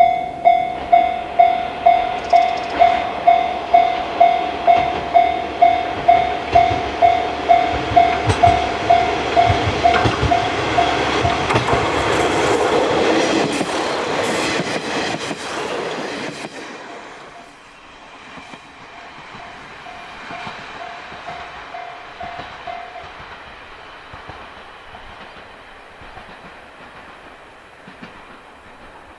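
Japanese level-crossing warning bell ringing about twice a second while the diesel railcars of the Hayato no Kaze train pass, their wheels clattering over the rail joints and growing loud past the middle. The train noise then drops off sharply, the bell rings faintly for a few more seconds and stops, and a low rumble fades away.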